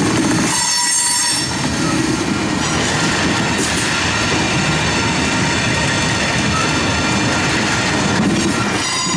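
Coal hopper cars of a freight train rolling past, with a steady rumble of wheels on rail. High-pitched wheel squeal rises over it about half a second in and again near the end.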